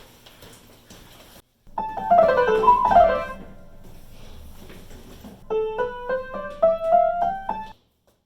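Piano notes: quick downward runs about two seconds in, then a stepwise rising run of single notes near the end.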